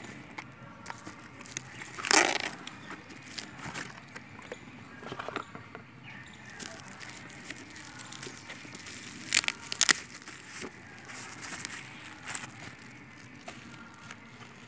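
Bubble-wrap plastic sleeve and cardboard packaging rustling and crinkling as a smartphone box is unwrapped by hand, with louder bursts about two seconds in and again near ten seconds.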